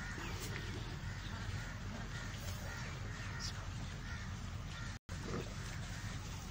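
Outdoor farmyard ambience: a steady low rumble with faint bird calls in the background. The sound cuts out for a split second about five seconds in.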